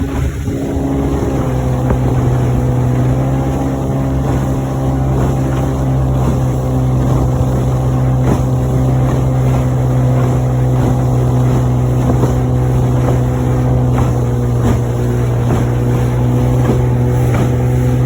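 Evinrude 25 hp two-stroke outboard motor running steadily with the boat under way, a constant low engine hum.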